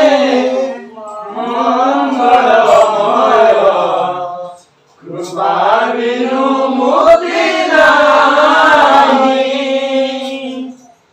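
Men chanting a devotional song in long, held phrases, with a short break about four and a half seconds in.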